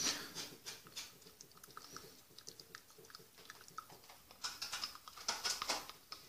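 Wooden stick stirring a thick beeswax balm in a small glass jar: faint, scattered clicks and scrapes of wood on glass, busier near the end.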